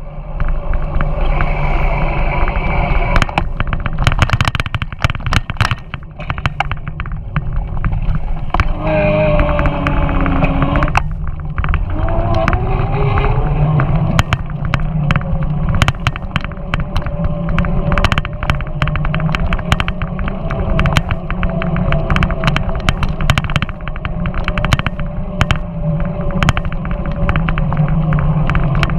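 Wind buffeting the microphone of a camera riding on a bicycle, with frequent rattles and knocks from the bike going over uneven pavement. A whining tone glides up in pitch twice, about a third of the way through.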